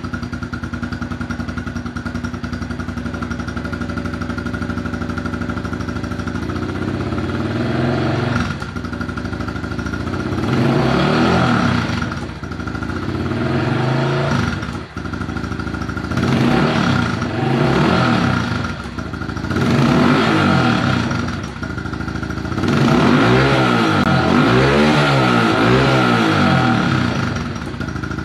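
A 2021 Honda CRF110's small single-cylinder four-stroke engine, running through its stock exhaust. It idles steadily at first, then is revved again and again, rising and falling in pitch, with longer revs near the end.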